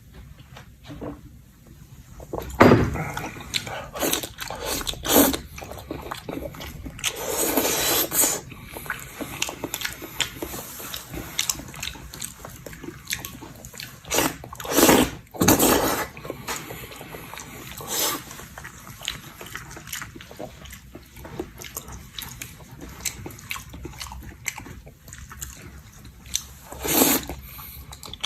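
Close-up eating sounds of a person chewing pig ears: steady wet chewing and lip-smacking, with a few louder, longer mouth noises about 3, 8, 15 and 27 seconds in.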